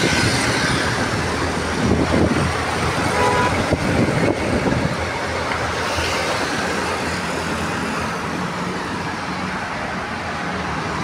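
Busy city road traffic: engines and tyres of passing lorries, auto-rickshaws, motorbikes and cars, louder and heavier in the first few seconds as a lorry goes by close. A vehicle horn gives a short toot about three seconds in.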